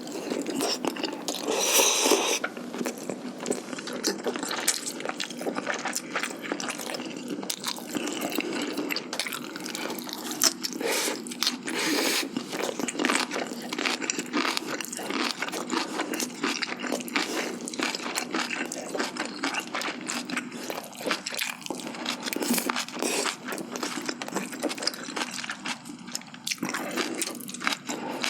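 Close-miked eating sounds: chewing, crunching and wet smacking of spicy braised chicken, glass noodles and kimchi. There are many small clicks throughout, with a louder noisy patch about two seconds in.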